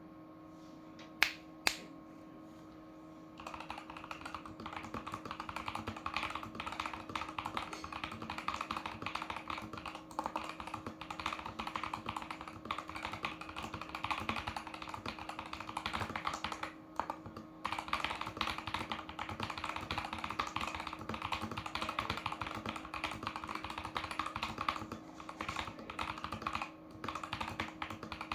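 Typing on a Tecware Phantom+ mechanical keyboard with Wraith Red linear switches. Two sharp clicks about a second in, then steady fast typing from about three seconds in, with short pauses near the middle and near the end.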